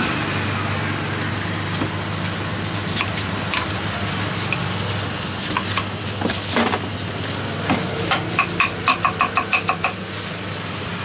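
Knife cutting a peeled mango on a wooden chopping board: a few separate slicing cuts, then from about eight seconds in a rapid, even run of chops, about seven a second, as a crinkle-cut blade dices the mango against the board. A steady low engine hum runs underneath.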